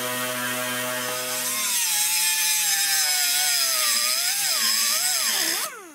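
Kobalt air cut-off tool spinning its wheel, then grinding through a steel spring shackle bracket: the whine drops and wavers under load under a loud, hissing grind. Near the end the pitch climbs briefly as the load comes off, and the tool winds down.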